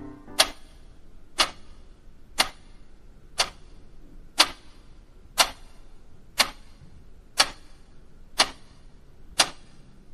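Analogue wall clock ticking, one sharp tick a second.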